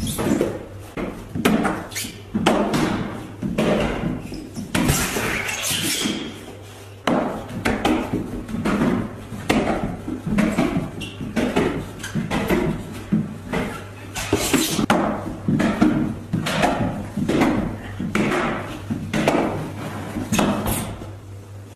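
Repeated knocks and thumps of a child's shoes and hands hitting a pillar while climbing and slipping, with people's voices talking over them.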